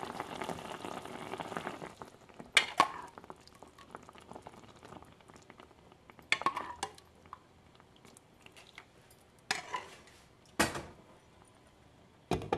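Mushroom broth bubbling in a non-stick frying pan, stopping abruptly after about two seconds. Then come a handful of sharp clinks and knocks of cookware, a few seconds apart.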